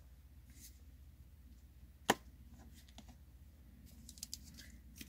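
Trading cards and a booster pack being handled on a table: a sharp click about two seconds in, then a few light taps and rustles near the end, over a low steady hum.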